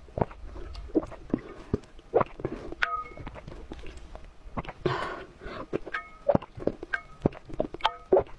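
Close-up eating sounds of raw eggs: wet slurping and swallowing of raw egg yolks and egg white with many lip smacks and clicks, one longer slurp about five seconds in. A metal spoon clinks with a short ring three times.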